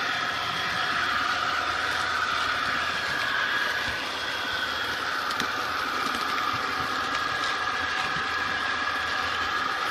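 HO-scale model train running along the track, heard from a phone riding on the train: a steady mechanical whine that wavers slightly in pitch.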